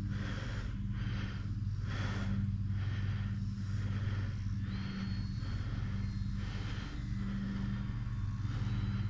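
Electric RC trainer plane in flight, its brushless motor and propeller buzzing steadily, with a faint thin high whine that rises in pitch about four and a half seconds in.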